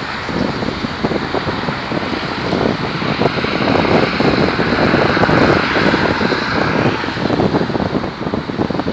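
Highway traffic passing below: a steady rush of car tyre and engine noise that swells about four to six seconds in as cars come through close by, then eases.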